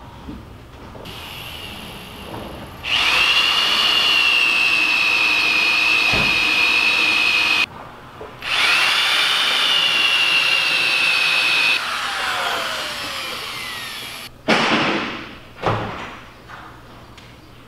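Power drill in a drill guide boring down into thick yellow cedar bulwark timber: a steady high motor whine in two long runs, about five and three seconds, with a short break between, then winding down in pitch. A few sharp knocks follow near the end.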